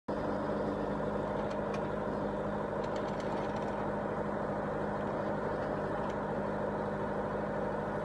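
Compact tractor's engine running steadily at a constant speed while it drives the hydraulics of a tractor-mounted LW-6 backhoe digging soil, with a few faint light clicks.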